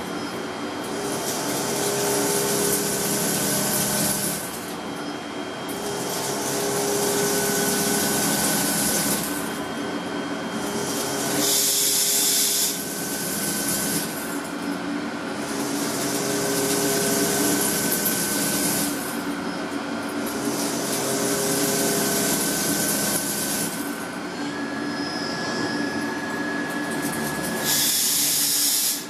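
Factory-floor machinery noise with a steady hum, broken by repeated spells of loud spraying hiss a few seconds long that start and stop sharply.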